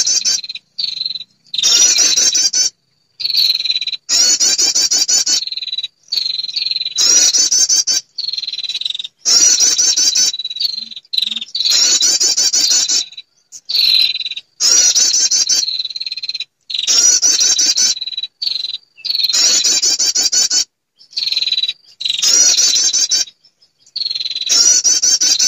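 Bird-lure recording of a female prinia (perenjak) call: a rapid, high-pitched chattering trill repeated in bursts of about a second, over a steady high buzz, each burst breaking off suddenly into silence.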